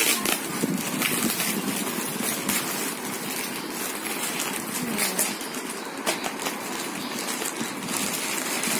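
White plastic courier mailer bag rustling and crinkling with irregular crackles as it is torn and pulled open by hand.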